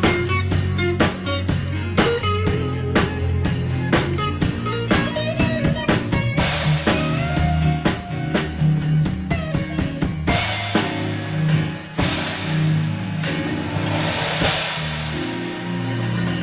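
Live gospel band playing: a drum kit keeps a steady beat under bass guitar and guitar with a melody line on top, and cymbals wash over the last few seconds.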